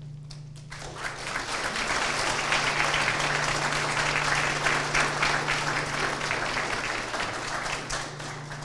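Audience applauding: clapping starts about a second in, holds steady, and dies away near the end.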